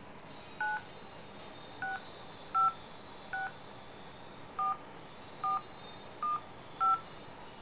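HTC touchscreen phone's dialer keypad playing eight short two-tone dialing beeps, one per digit, as a phone number is keyed in. The beeps come at an uneven pace, about one a second, with a couple in quicker succession near the end.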